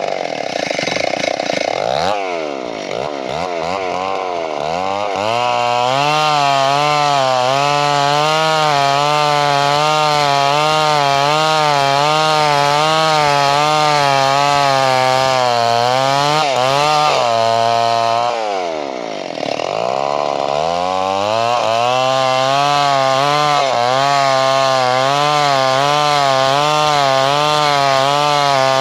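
Two-stroke chainsaw cutting wood, the engine pitch wavering up and down about once a second as it works through the cut. The engine drops off twice, about two seconds in and again about two-thirds of the way through, then revs back up.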